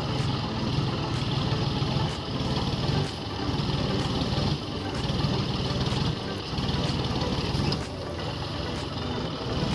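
John Deere tractor's diesel engine running steadily as it pulls a tine cultivator through dry soil, with the level dipping briefly several times.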